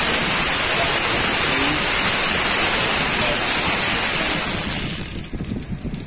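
Bicycle drivetrain spinning on a stand: a 10-speed chain running over a Shimano Deore M4100 11–42 cassette and rear derailleur pulleys, a steady whirring hiss. About five seconds in the whirr drops away and turns uneven as the pedalling eases off.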